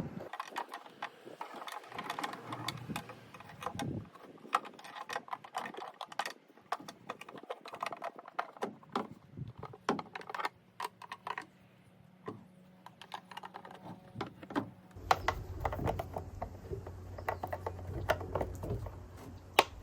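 Irregular light clicks and taps of plastic tail-light parts being handled and fitted back into place. About fifteen seconds in, a steady low hum starts and continues under the clicks.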